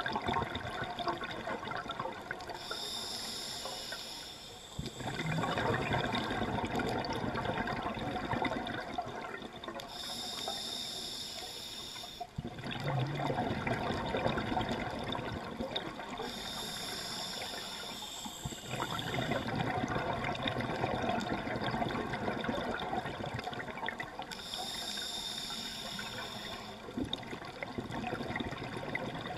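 Scuba diver breathing through a regulator: four slow breaths about seven seconds apart, each a two-second hissing inhale followed by a long rumble of exhaled bubbles.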